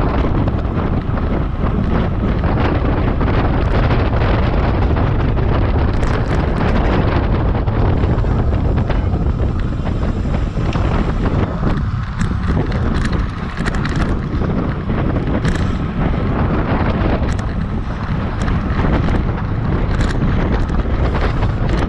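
Wind buffeting a GoPro's microphone on a road bike racing at about 27 mph: a steady, loud rumble, with a few faint brief ticks over it.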